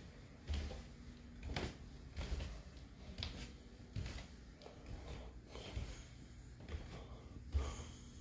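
Irregular soft thumps and a few sharper knocks of footsteps and the phone being handled while walking through a room, over a faint steady hum.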